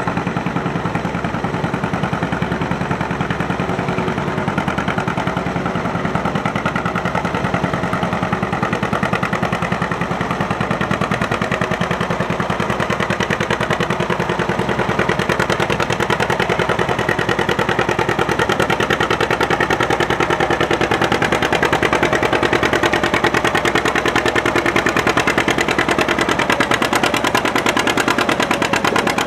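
Antique farm tractor engine running steadily, with a rapid, even firing beat.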